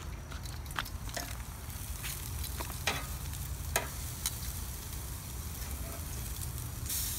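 Steaks and sausages sizzling on a charcoal grill, with a few sharp clicks of metal tongs on the grate as the meat is turned over. The hiss swells louder near the end.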